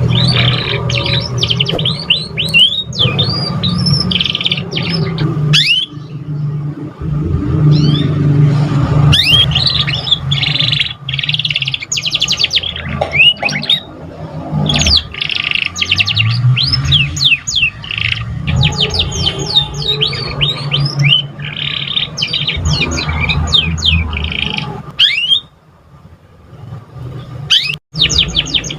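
Domestic canary singing a long, fast song of rapid trills and chirps, with a steady low hum underneath. The song breaks off briefly near the end.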